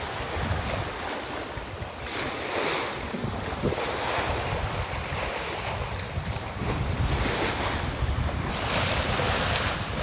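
Sea water rushing and splashing along the hull of a sailing yacht moving fast through choppy water, rising in surges as waves break past, with wind buffeting the microphone.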